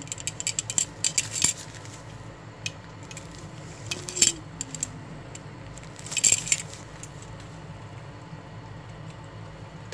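Dried fish frying in shallow oil in a nonstick pan: scattered crackling pops from the hot oil, with clusters of metallic clicks from tongs against the pan as the pieces are turned.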